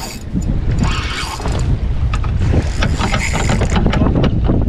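Spinning reel clicking and whirring as a hooked fish is played on a bent rod, with a run of sharp ticks over wind rumbling on the microphone.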